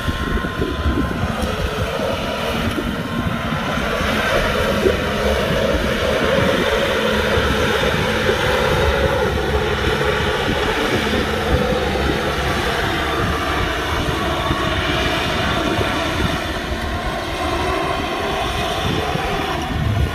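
Kubota tractor's diesel engine running steadily, with a dense mechanical drone.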